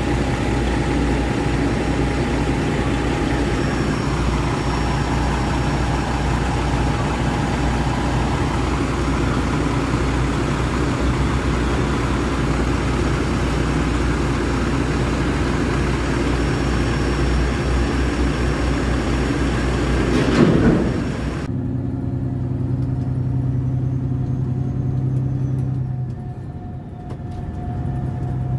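Diesel semi truck idling with container-crane machinery running at a port, with a short loud surge of noise about twenty seconds in. Then the steady hum of the truck's engine and road noise from inside the cab at highway speed.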